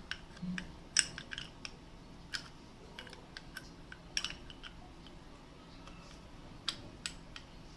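Scattered light metallic clicks and clinks of brake pads and their retaining clips being handled and snapped into place in a Bajaj Pulsar NS200's front disc brake caliper, about seven sharp ticks at irregular times.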